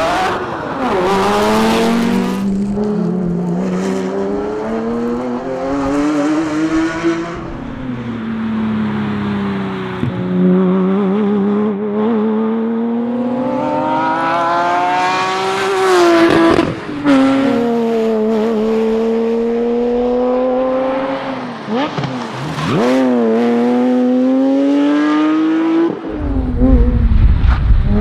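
Porsche Cayman S engine driven hard, rising in pitch under acceleration and dropping sharply at each gear change and lift, again and again. A low rumble comes in near the end.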